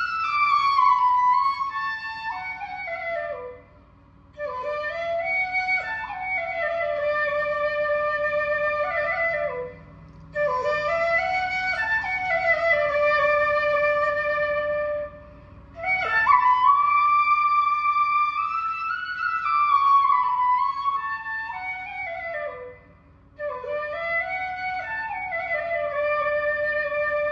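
Background music: a solo flute playing a melody in long phrases that slide up and down in pitch, with brief pauses between phrases.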